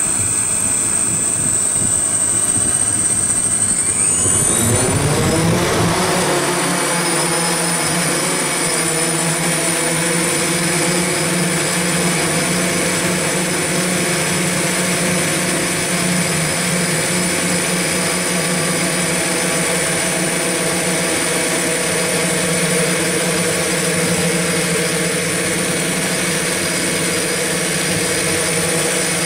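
X8 multicopter's eight electric motors and propellers spinning up, climbing in pitch about four to six seconds in as it lifts off, then holding a steady multi-tone buzz with a high whine in flight, heard close from the camera it carries.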